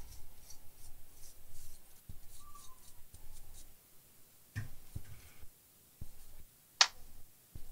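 Toothbrush bristles scrubbing a MacBook Air logic board in short, scratchy repeated strokes, with a single sharp click near the end.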